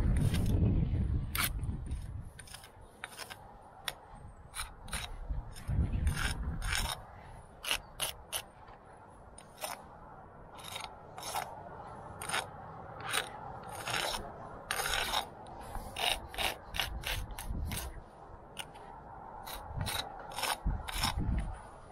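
Metal brick jointer scraping along fresh mortar joints in many short, irregular strokes, tucking in and neatening the pointing. Low rumbles come at the start and again about six seconds in.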